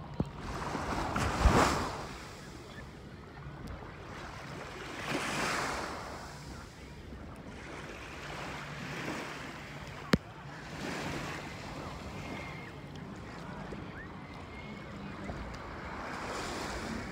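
Small waves washing onto a sandy beach in repeated swells, with wind on the phone microphone. A single sharp click comes about ten seconds in.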